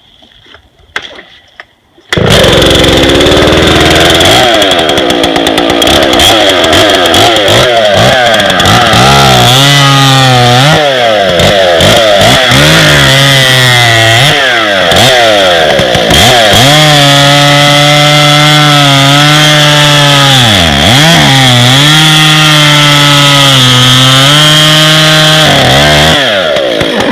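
Husqvarna 2100 direct-drive two-stroke bow chainsaw cutting through a log, coming in suddenly about two seconds in. The engine pitch swings up and down at first, then holds steadier under load with brief dips as the chain bites, until the saw drops back near the end.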